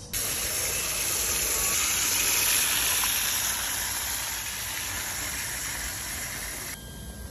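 Water running steadily into a plastic basin, a splashing hiss that cuts off abruptly near the end.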